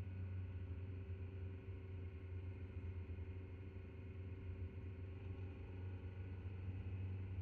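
A car driving at a steady speed: a low, even drone of engine and road noise, with a faint steady hum above it.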